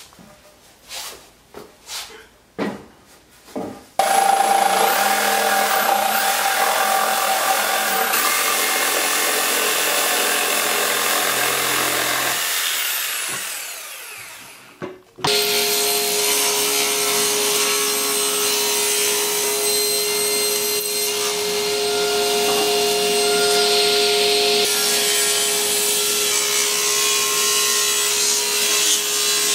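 A few knocks and taps, then a table saw starts and runs through a pine 2x6, cutting it in half, and winds down for a few seconds as it is switched off. About halfway through the saw is running again, with a steady motor hum, as a board is ripped along the fence.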